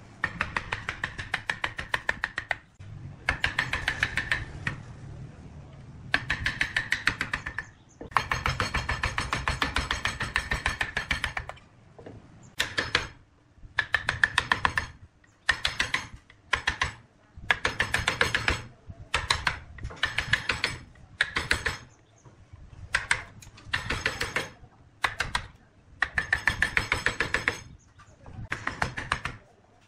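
A steel chisel working a wooden piece on a lathe, making rapid, evenly spaced clicking in bursts of one to three seconds with short pauses between the cuts.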